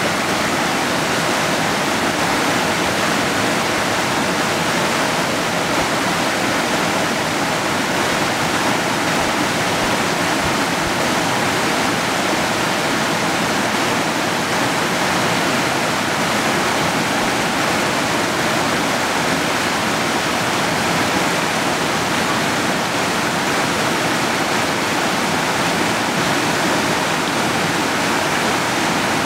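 Creek water rushing steadily over rocks, an even, unbroken noise.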